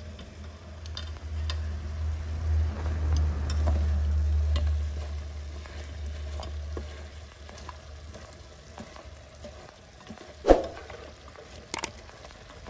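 Wooden chopsticks stirring and prodding chicken pieces and lemongrass in a metal cooking pot: soft scraping and small clicks, over a low rumble during the first half. One sharp knock, the loudest sound, comes about ten and a half seconds in, followed by a couple of lighter clicks.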